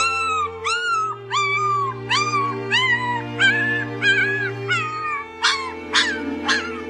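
Young puppies crying in high-pitched, rising-and-falling squeals, about two a second, turning into sharper yelps near the end, over background music with sustained chords.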